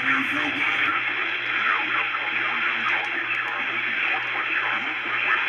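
Radio audio heard through a small speaker: a steady, narrow-band hiss with indistinct voice-like sound buried in it, over a constant low hum.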